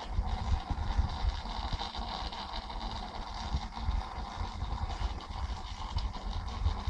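Steady running noise of an aquarium pump with water bubbling and splashing, over an irregular low rumble.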